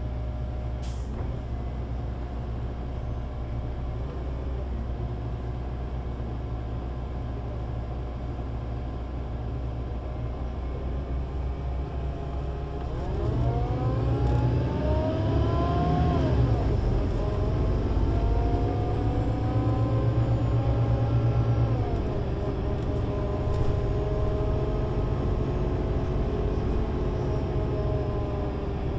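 Solaris Urbino 18 IV articulated bus with a DAF diesel engine and Voith Diwa 6 automatic gearbox, heard from the passenger cabin. It runs steadily at idle, then about thirteen seconds in it gets louder and the pitch climbs, drops at a gearshift, climbs again, and falls back to a steady note.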